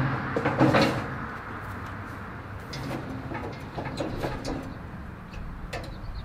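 Steel grill parts clanking as a Santa Maria grate frame is set onto a barrel smoker, a cluster of loud metal knocks about half a second in, followed by lighter scattered clicks and rattles as the crank handle for the adjustable grate is taken in hand.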